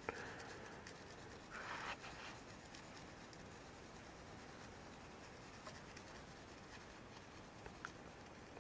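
Faint scratching of a pencil drawing on paper, with one louder stroke about a second and a half in and a couple of small ticks near the end.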